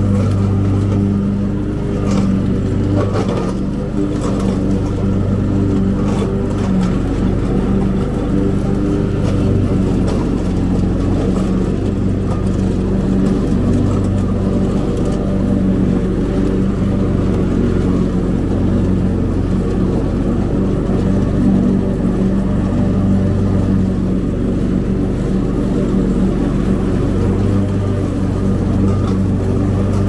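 Cub Cadet Ultima ZT1 zero-turn riding mower's engine running steadily at an even pitch while mowing.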